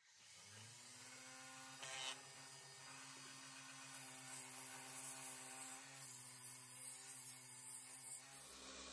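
Wood lathe motor switched on, spinning up with a rising hum over the first second, then running steadily. From about four seconds in, sandpaper hisses against the spinning Jatoba wood vase.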